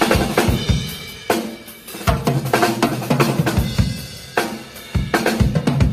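Acoustic drum kit played live: kick drum, snare and tom hits under crashes on Zildjian cymbals, which come about once a second.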